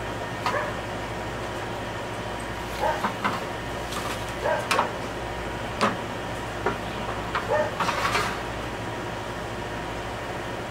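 Several brief high whimpers from a dog, mixed with short knocks of a plastic bottle and a metal square being set down on a slatted wooden table.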